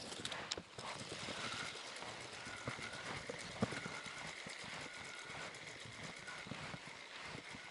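Spinning reel being cranked to retrieve a lure: a faint steady whine with small irregular clicks.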